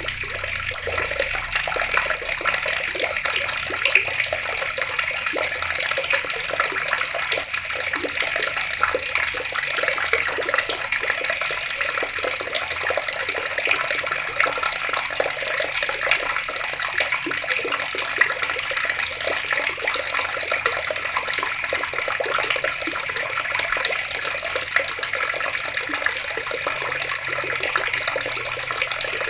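Water running steadily from an outdoor tap, splashing with a constant rush.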